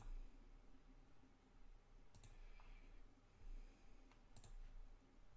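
Computer mouse buttons clicking three times, about two seconds apart, each click a quick press-and-release pair, against near silence.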